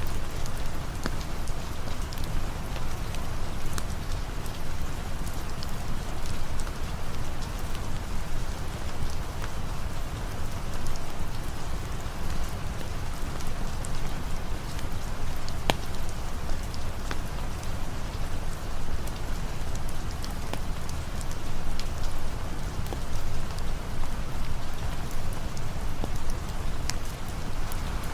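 Steady rain falling, with scattered sharp crackles from a campfire, one louder pop about halfway through.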